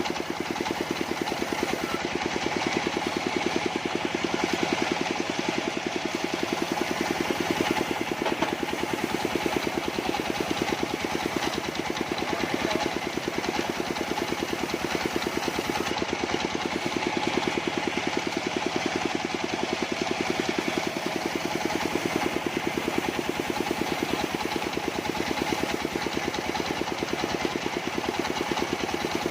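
Engine of a mobile sawmill running steadily with a rapid, even firing rhythm.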